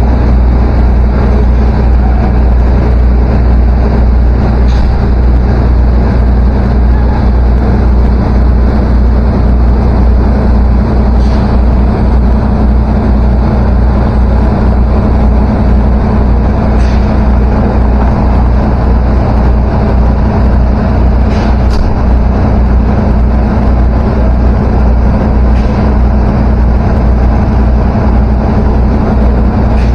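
Large machinery running with a loud, steady, low drone and a deep, unchanging hum. A few faint ticks sound now and then.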